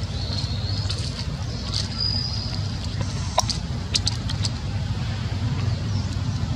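Steady low rumble like distant motor traffic, with a few faint high chirps and a short run of sharp clicks about halfway through.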